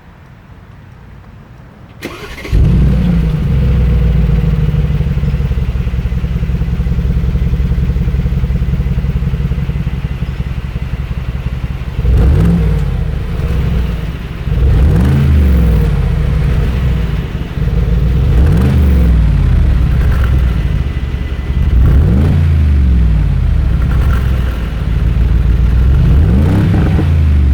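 2019 Mercedes-AMG G63's twin-turbo V8 starting about two seconds in with a loud flare, then settling to a steady idle. From about halfway through it is revved several times in short blips, each rising and falling in pitch.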